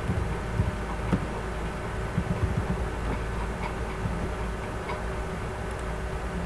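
Irregular, scattered clicks of typing at a computer, over a steady low hum of background noise.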